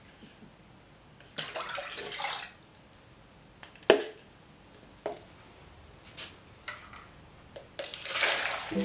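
Plastic tubs being handled, with a sharp plastic knock about four seconds in. Near the end, a runny liquid is poured from one plastic tub into a plastic yogurt tub, giving a splashing pour about a second long.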